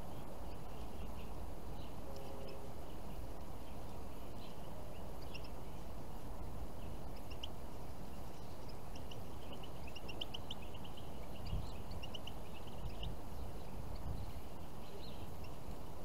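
Faint, scattered high chirps and twitters of small finches, a goldfinch among them, busiest about ten to thirteen seconds in, over a steady low outdoor rumble.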